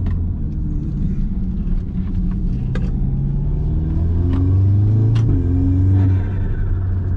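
Audi S3's turbocharged four-cylinder engine, running with its diverter valve removed, pulling under acceleration. Its note climbs and then drops at a gear change about five seconds in, with a few sharp clicks along the way.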